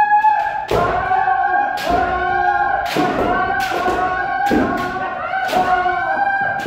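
Kendo trainees shouting drawn-out kiai, several voices overlapping at a steady pitch, cut by sharp strike and stamp sounds about once a second as attacks land.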